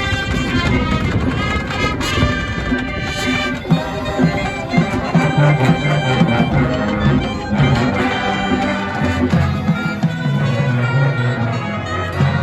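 Instrumental music with brass and a moving bass line.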